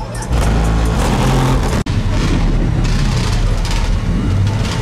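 A car engine running, loud and steady, over crowd chatter. The sound cuts out for an instant about two seconds in.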